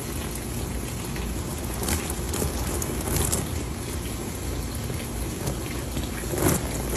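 Water from a garden hose splashing steadily onto a wet trampoline mat, a continuous rain-like patter.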